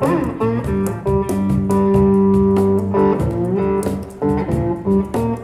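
Blues electric guitar playing an instrumental break, with sliding notes and a long held note in the middle, over a steady beat slapped on a cajon.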